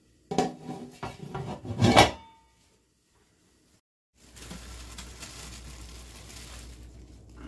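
Metal lid of an aluminium steamer pot clattering as it is lifted off, with a loud clank and a brief ring about two seconds in. After a short silence, a steady low hum with faint rustling as plastic-gloved hands handle a dried fish on the steamer basket.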